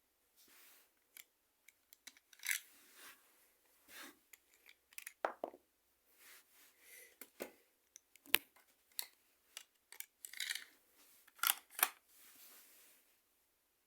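Irregular plastic clicks and rattles of a Lego pistol being handled, with a few sharper clicks, the loudest about eight seconds in and a close pair near the end.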